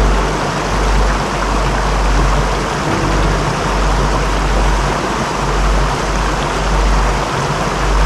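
Wind buffeting the camera microphone outdoors: a loud, continuous rushing noise with an irregular, gusty low rumble.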